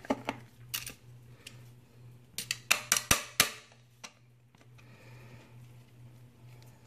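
Screwdriver and metal parts clicking against the metal electrical cover plate of an InSinkErator Badger garbage disposal as its screw is snugged up: a few scattered sharp clicks, then a quick run of about half a dozen clicks and taps near the middle, over a steady low hum.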